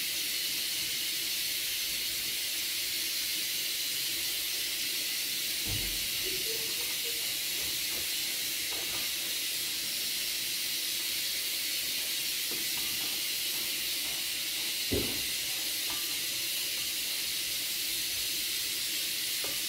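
A steady high hiss, with two soft knocks, about six seconds in and again near fifteen seconds, from bowls and a plate being handled while banana peels are dipped in egg and pressed into breadcrumbs.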